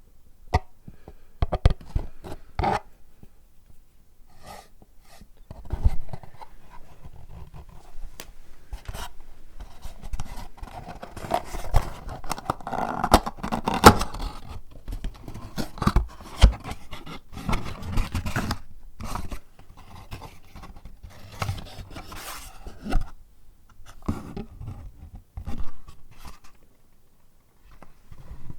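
Close-up handling of paper and packaging: repeated scraping and rustling with many sharp taps and clicks, busiest in the middle.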